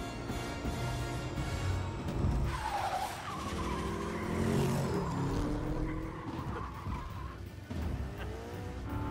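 Car chase sound: engines revving and a long tyre squeal from about two and a half seconds in until about seven and a half, with music underneath.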